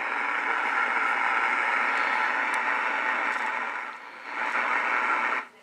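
Static hiss from a Realistic SX-190 shortwave receiver's speaker, band noise with no station coming through. The hiss dips briefly twice near the end.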